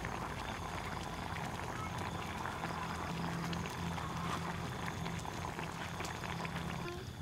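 Pork leg pieces frying in hot oil in a wok, a steady sizzle full of small crackles.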